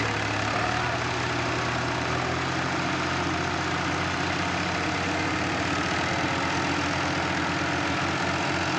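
Diesel tractor engines running steadily under load, straining to pull a trolley loaded with sugarcane that is stuck in a soft field.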